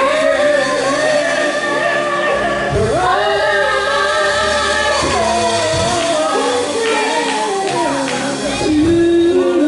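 Gospel worship song: voices singing long held notes over instrumental backing with a changing bass line.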